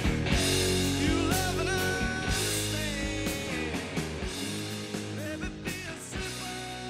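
Background rock music with guitar, fading out steadily.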